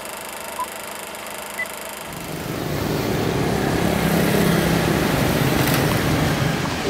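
Two short countdown beeps a second apart, the second one higher, then road traffic with small motorcycles passing close by, swelling in about two seconds in and staying loud.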